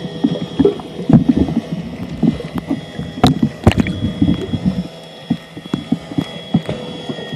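Water sloshing and splashing with irregular knocks and clicks, heaviest in the first few seconds and lighter after, over a faint steady high whine.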